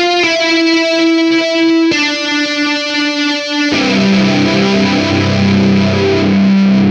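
Instrumental intro music led by guitar. Single ringing notes give way about halfway through to a fuller, distorted section with a heavy bass line.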